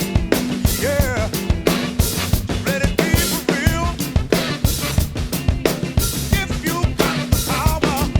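Drum kit playing a busy funk groove, with kick drum, snare and rimshot accents in a dense, even rhythm, over a funk track with a bass line and bending pitched parts.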